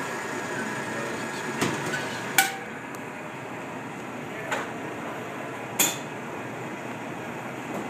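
Four sharp metallic clinks over a steady running noise, the loudest about two and a half seconds in, each with a brief ring. They are metal utensils knocking against a metal bowl of crème anglaise being frozen with liquid nitrogen.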